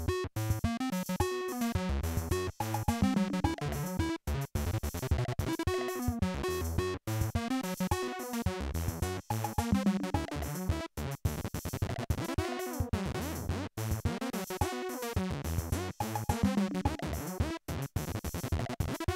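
Polivoks analog synthesizer played on its keyboard: a quick run of short notes broken by brief gaps, with several swooping sweeps in pitch and tone about halfway through and again later.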